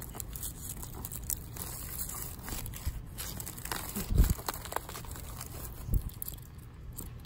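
Knife working through the base of a Madagascar palm (Pachypodium lamerei) pup to cut it from the parent plant: faint crackling and crunching, with a dull thump about four seconds in and another about six seconds in.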